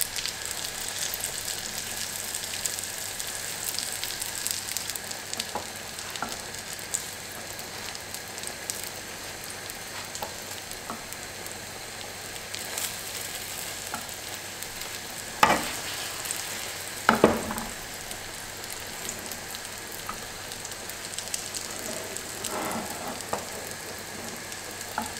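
Ricotta fritters (syrniki) sizzling in melted butter in a nonstick frying pan over low heat, a steady sizzle full of fine crackles. Two sharp knocks about fifteen and seventeen seconds in, the spatula against the pan as the fritters are turned.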